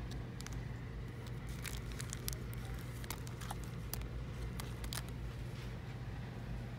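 Plastic-wrapped sticker packs crinkling and clicking as they are handled, a string of sharp crackles over the first five seconds or so. A steady low hum runs underneath.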